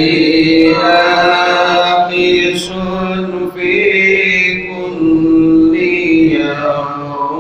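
A man chanting Arabic Islamic devotional verses (sholawat) solo into a close microphone, holding long, drawn-out, ornamented notes with brief pauses for breath.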